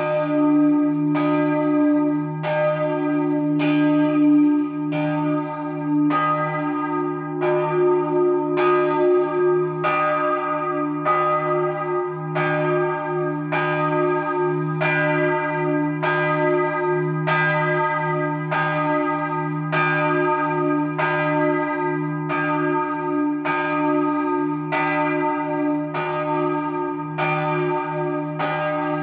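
The middle bell of a three-bell Capanni peal, cast in 2009, swinging full out for the noon ringing, its clapper striking evenly a little more than once a second. Its low hum sustains continuously beneath the strikes.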